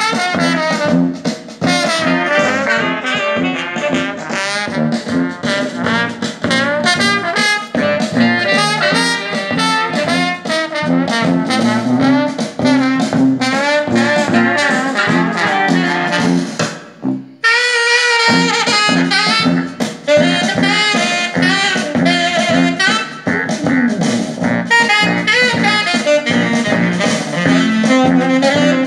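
Jazz music with horns played back through a pair of Pioneer S-DV55ST speakers with 3-inch full-range drivers, as a listening test of the speakers. The music drops out briefly a little past the middle, then carries on.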